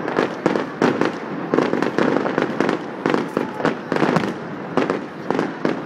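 Fireworks display going off in rapid succession: many sharp bangs and crackling reports, several a second, over a continuous rumble.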